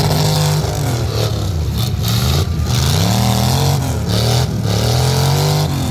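Lifted Ford Super Duty mega truck's engine revving hard, again and again, about four times, the pitch climbing and dropping each time as the truck sits stuck in deep mud.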